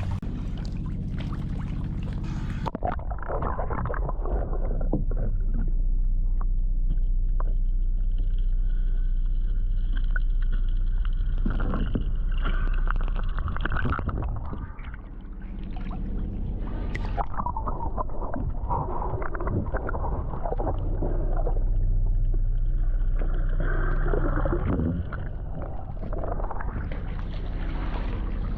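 Boat engine running steadily with a low, even hum, under a shifting rushing noise.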